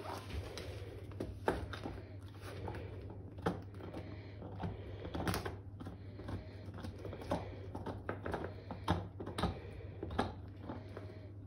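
Black Labrador gnawing a hard bone-shaped chew toy: irregular clicking and knocking of teeth on the chew, several times a second, over a low steady hum.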